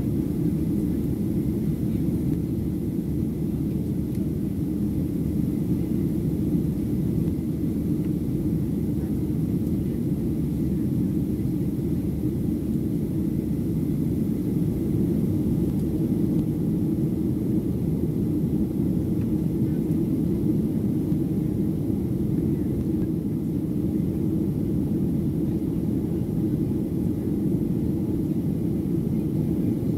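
Steady low engine and airflow roar heard inside the cabin of a Boeing 737-700, from its CFM56-7B turbofans, as the airliner climbs out after takeoff.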